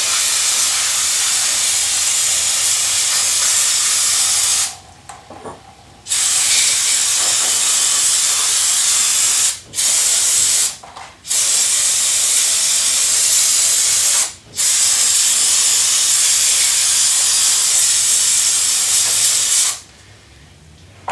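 Aerosol brake cleaner spraying in five long hissing bursts, each a few seconds long with short breaks between, as a dragging ATV wheel's brake is flushed clean.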